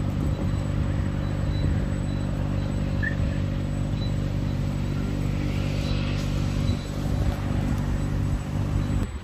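A motor vehicle's engine running at a steady speed, an even low drone that cuts off suddenly near the end.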